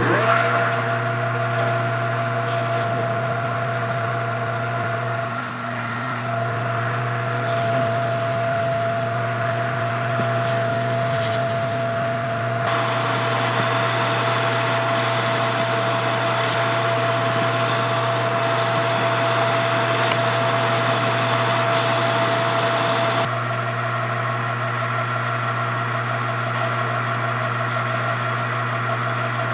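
Metal lathe running with a steady motor hum and a constant whine as a turning tool cuts the bronze front hub. About halfway through, a harsher hissing cut runs for some ten seconds and stops suddenly while the lathe runs on. Near the end a hand file scrapes against the spinning hub.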